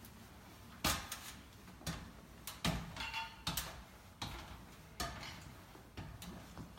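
Irregular light clicks and knocks, roughly one a second, from hands handling small hard plastic parts and packaging. One knock about three seconds in rings briefly.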